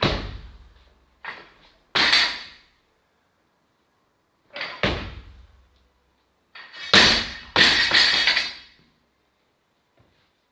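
Snatch with a 77 kg barbell: a heavy thud as the bar is received in the squat, then a series of knocks, and about seven seconds in the loaded barbell with bumper plates is dropped from overhead onto the floor, landing and bouncing with loud ringing clanks, the loudest sound.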